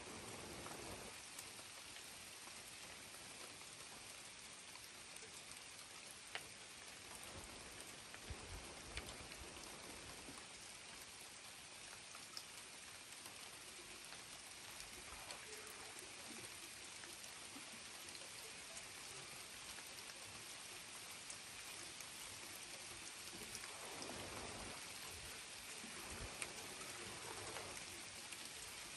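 Steady rain falling, with single drops ticking sharply now and then. A faint low rumble comes about eight seconds in and again near the end.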